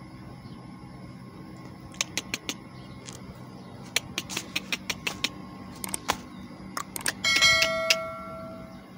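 Like-share-subscribe overlay sound effects: a string of sharp clicks starting about two seconds in, then a notification bell chime a little after seven seconds that rings and fades out, over a steady low background hum.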